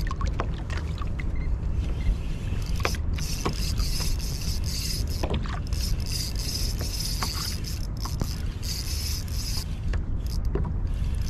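Wind rumbling on the microphone and water noise on a fishing kayak, with a high mechanical whirring that comes and goes and scattered light clicks.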